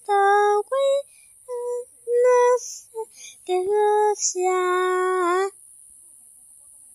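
A high voice singing a wordless tune in short, separate held notes, ending on one longer note.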